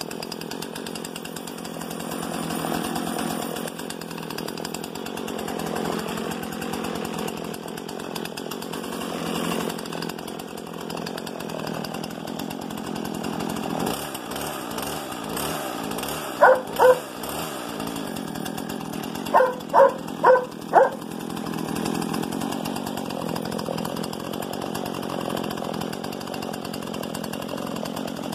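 Husqvarna 120 Mark II two-stroke chainsaw running steadily on its first start-up. A dog barks twice about halfway through, then four times a few seconds later; the barks are the loudest sounds.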